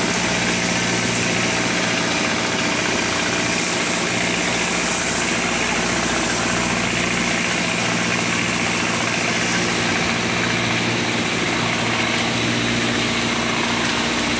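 Outrigger boat's engine running steadily underway, a constant low drone with a few steady tones under an even hiss.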